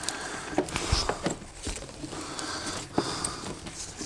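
Handling noise of a network cable being pulled and routed behind a wall unit: rustling with a few light knocks, one about a second in and another near the end.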